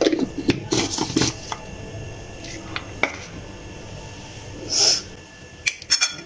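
Kitchen utensils being handled: a few light clicks and knocks at the start, a short hiss about five seconds in, then a quick run of clicks as a metal spoon is picked up in a glass bowl near the end.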